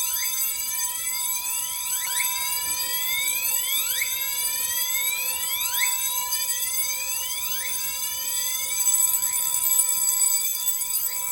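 Fire alarm notification appliances sounding together: overlapping rising whoop sweeps about every two seconds over a steady tone, set off by a duct smoke detector tripped for a supervisory test.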